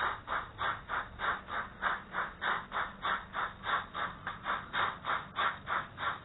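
Model 30 class steam locomotive chuffing steadily at about three beats a second, heard close up from the wagon it is pushing, with a faint low motor hum underneath.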